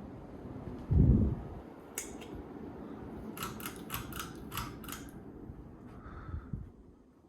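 Craftmade CXL ceiling fan running with a steady rush of air and motor noise, which dies away near the end. A loud low thump comes about a second in, then a click, then a quick run of about six sharp clicks.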